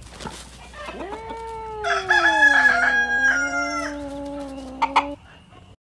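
A domestic cat yowling in one long drawn-out cry that falls in pitch and then holds low, while a rooster calls loudly over it for about two seconds in the middle. Two sharp knocks come near the end, just before the cry stops.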